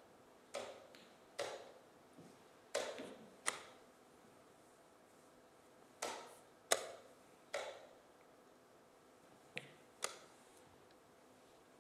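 Blitz chess moves: wooden pieces knocked down on a wooden board, each followed within a second by a press of the chess clock, giving about nine sharp knocks in quick pairs.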